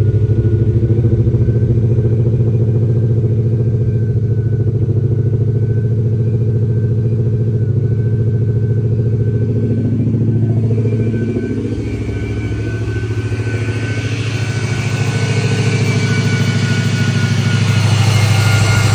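Ford Mustang Boss 302's turbocharged 5.0-litre V8 running loud and steady, on its first start after the rebuild. About eleven seconds in the engine note drops and shifts, then it builds back up near the end.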